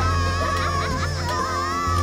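Cartoon soundtrack music with a steady low bass and wavering high melody lines.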